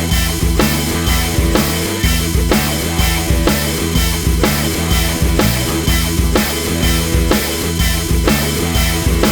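Background rock music with a drum kit keeping a steady beat, about two beats a second, over a driving bass line.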